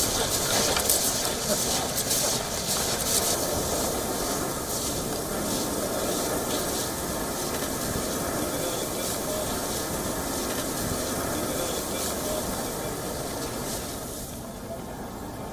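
Field sound beside an active lava flow and erupting volcano: a steady rushing hiss with sharp crackles over the first few seconds, easing off near the end.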